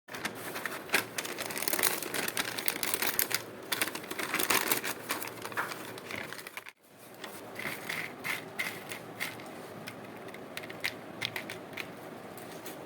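Crisp crackling and crunching of potato chips being crushed and handled, dense at first; about halfway through the sound cuts and resumes as sparser crackles.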